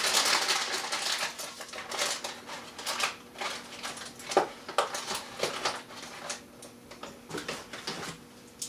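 A paperboard box of candy cane taffy being torn open and handled, with a run of crinkling, rustling and sharp crackles. The crackles are densest in the first second or so, then come as scattered clicks.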